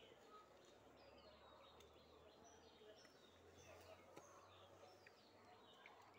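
Near silence: faint open-air ambience with small birds chirping faintly now and then.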